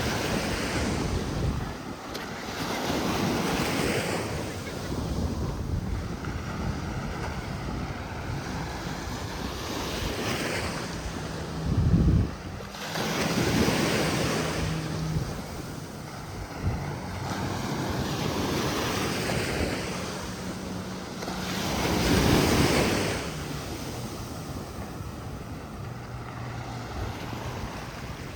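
Sea waves breaking and washing up a beach, the surf swelling and falling every few seconds, with wind buffeting the microphone.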